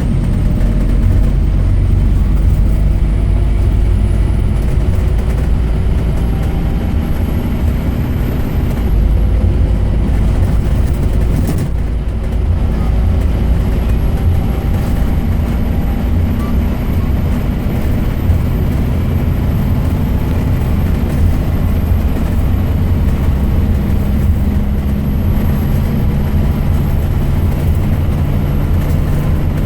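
Scania K270UB Omnilink single-deck bus under way, its five-cylinder diesel engine running steadily under load. The engine note climbs slowly and drops back about nine and twelve seconds in, and a thin high whine runs above it.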